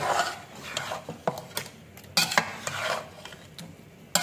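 A metal spoon stirring raw chicken pieces in a large aluminium pot, in several scraping strokes with sharp metal knocks against the pot, the loudest right at the start and a little past halfway.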